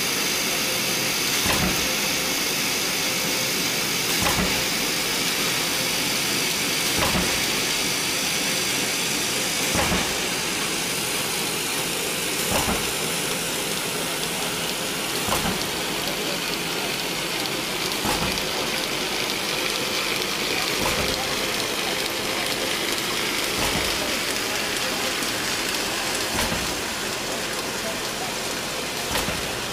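Roll-forming mill running: a steady hiss and whirr of machinery, with a sharp knock repeating about every three seconds.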